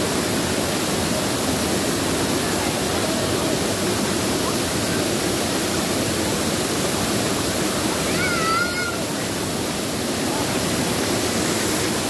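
Waterfall pouring onto rock into its plunge pool: a steady rush of falling water. A short, high, warbling call sounds briefly about two-thirds of the way in.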